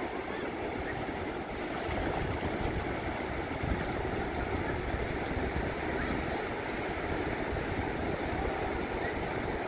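Surf on a sandy beach: small waves breaking and washing up over the flat sand, a steady rushing noise with a low rumble beneath it.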